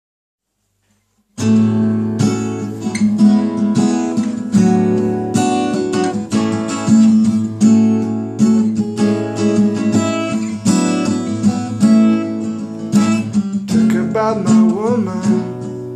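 Acoustic guitar strummed in a steady rhythm as a song's intro, starting about a second and a half in after silence. A voice begins singing near the end.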